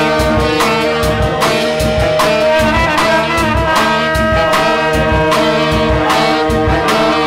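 Jazz-rock band music: a horn section of alto saxophones and trumpet holding a melody over a steady drum beat.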